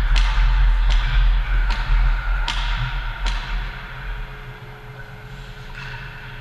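Ice hockey rink sounds: five sharp cracks about 0.8 s apart over a low rumble, which fades after about three and a half seconds as play moves away from the net.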